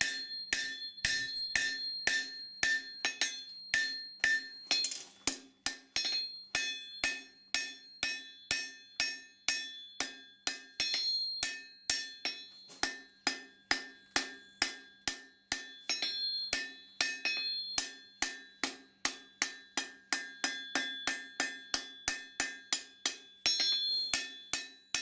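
Hand hammer striking hot steel on an anvil in a steady run of blows, about two to three a second, each with a bright ringing note: the knife tip being drawn out into a distal taper.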